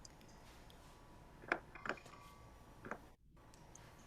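Low background hiss with a few short faint clicks, about one and a half, two and three seconds in.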